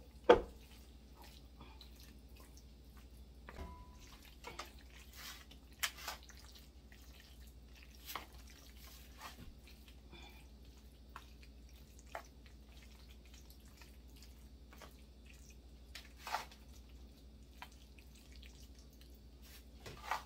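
Baked ziti being spooned out of a stainless steel bowl into foil pans: scattered soft wet plops and scrapes of the pasta mixture, with a sharp knock about a third of a second in and a few lighter clicks spread through.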